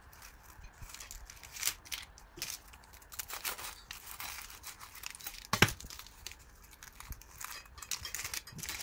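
Crisp baked puff pastry crackling and crunching as it is sawn with a serrated knife and pulled apart by hand, in many small irregular crackles. One sharper knock stands out a little past halfway.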